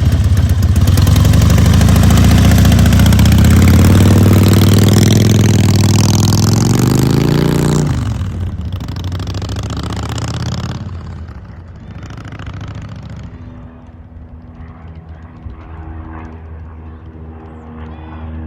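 Harley-Davidson motorcycle engine accelerating, its pitch rising for several seconds, then dropping off sharply about eight seconds in and running on quieter and steadier.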